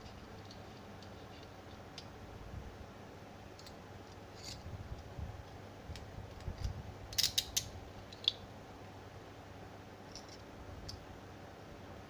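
Small metallic clicks and taps of a key working in a stainless steel handcuff lock, with a quick run of sharper clicks a little past the middle and one more click just after.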